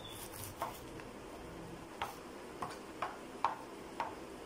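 Kitchen knife shredding a wedge of cabbage on a plastic chopping board: the blade taps the board with each slice, several irregularly spaced crisp ticks.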